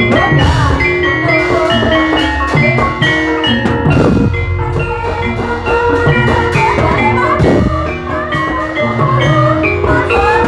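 Javanese gamelan music for an ebeg dance: struck metallophones ringing in fast repeating patterns over steady kendang drum strokes, played loud through a loudspeaker stack.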